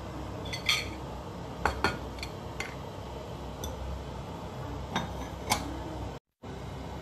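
Kitchenware being handled and set down: a series of short clinks and knocks of dishes on the counter and cutting board over a steady low hum. The sound cuts out completely for a moment near the end.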